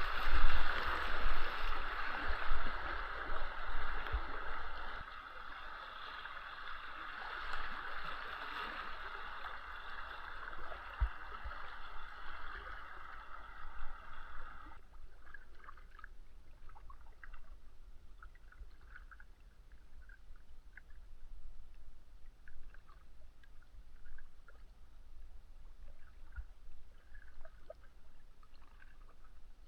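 Water rushing and gurgling for about fifteen seconds, then cutting off suddenly to a much quieter stretch of small scattered drips and splashes, with low bumps underneath.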